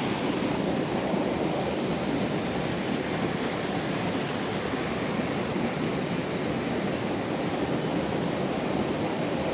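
Small rocky stream rushing steadily over stones.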